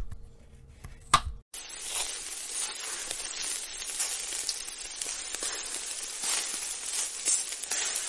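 Two knife chops on a wooden cutting board, then food sizzling and frying in a wok, a steady hiss with small crackles that starts about a second and a half in.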